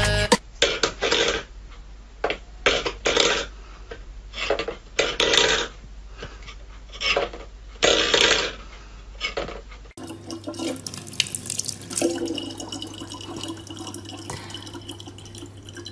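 Stainless steel bowls clattering and scraping on a wooden floor in short, irregular bursts. About ten seconds in this gives way to a thin stream from a kitchen tap running steadily into a plastic water jug.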